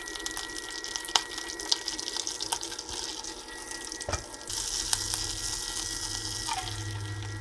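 Butter sizzling and crackling in a hot nonstick frying pan, with a knock as the pan is shifted about four seconds in. The sizzle then grows louder and denser as beaten egg goes into the pan.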